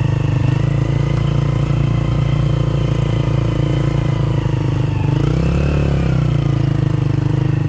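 Small motorcycle engine running steadily at riding speed, close and loud. It briefly swells and shifts in pitch about five seconds in.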